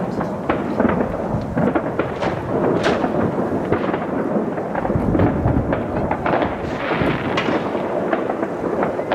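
Many fireworks going off at once: a continuous rumble of bangs with dense crackling throughout.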